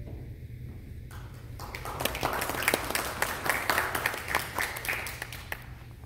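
Applause: hands clapping, starting about a second in, growing over the next second and dying away after about four seconds.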